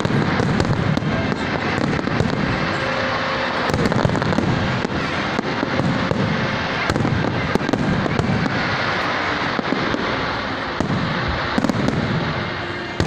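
Aerial fireworks display going off in a dense, continuous barrage: deep shell bursts overlapping with many sharp cracks and crackle.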